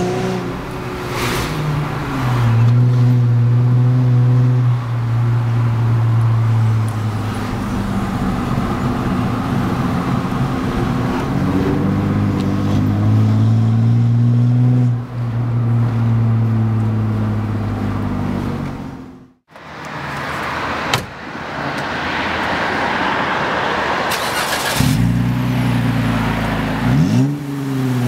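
Jeep Wrangler JK engine and exhaust running steadily with slow shifts in pitch. The sound drops out briefly about two-thirds of the way through, then there are a few quick revs rising and falling near the end.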